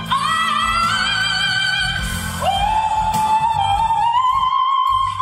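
A woman singing live, holding long, very high sustained notes over low band backing. About halfway through, a new note starts lower and slides upward.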